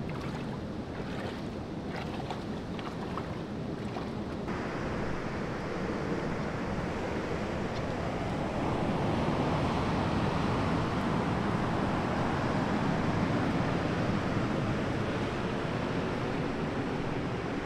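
Steady rushing of ocean surf and wind, with wind buffeting the microphone, a little louder in the second half.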